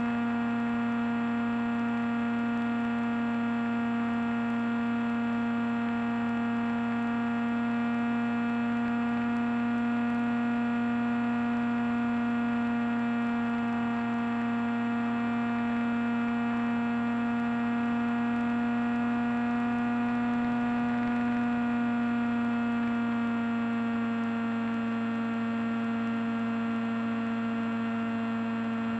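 Steady electric hum at one pitch with many overtones, carried on the Teksumo FPV plane's onboard audio in flight: the drone of the electric motor and propeller, with electrical whine from the onboard electronics. The pitch rises slightly and then settles a little lower some two-thirds of the way through.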